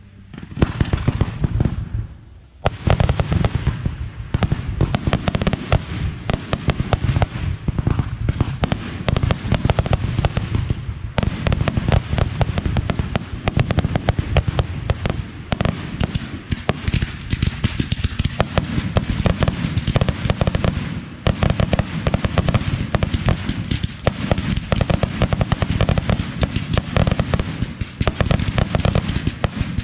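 Fireworks going off in a dense, continuous barrage: many bangs in rapid succession with crackling, after a brief lull about two seconds in.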